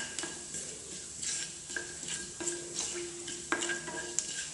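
Wooden spatula stirring whole spices (cumin, mustard, fennel and nigella seeds) in hot oil in a metal kadhai, with irregular scrapes and taps against the pan over a light sizzle as the spices roast.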